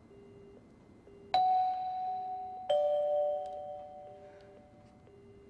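Telephone busy tone pulsing in the phone's earpiece, about one short beep a second, after the call has been cut off. Over it a two-note doorbell chime rings, a high ding then a lower dong, each ringing out and fading.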